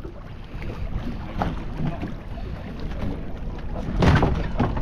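Wind buffeting the microphone over water lapping at the side of a small boat, with a louder rush about four seconds in.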